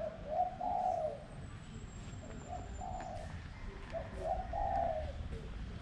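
A dove cooing: three phrases of several short, low notes.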